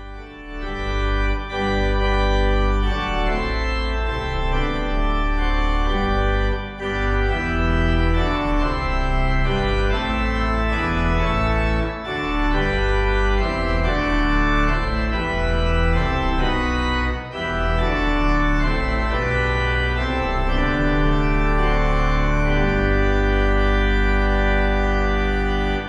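Organ playing a hymn tune in full chords over deep pedal notes, ending on a long held chord in the last few seconds.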